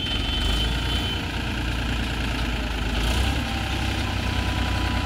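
Tractor's diesel engine running steadily, with a thin high whine over it for about the first second.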